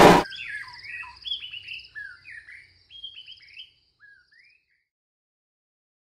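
A loud, dense electronic drone cuts off abruptly just after the start, leaving songbirds singing: repeated sweeping whistled notes with a high trill above them, thinning out and stopping about four and a half seconds in.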